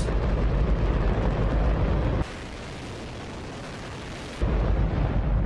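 Hydrogen-oxygen rocket engine on test firing, a continuous deep, loud roar. About two seconds in, it switches abruptly to a quieter, hissier version for about two seconds, then the full roar cuts back in.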